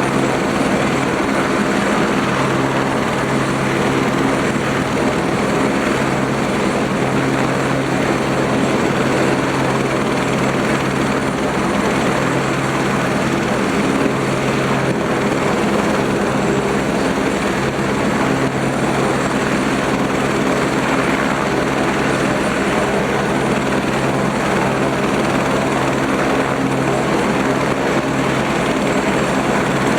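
Eurocopter AS350 B3 helicopter running steadily, its single turboshaft engine and rotor holding an even, unchanging tone.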